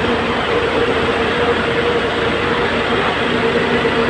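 A coach bus idling close by: a loud, steady drone with a constant hum.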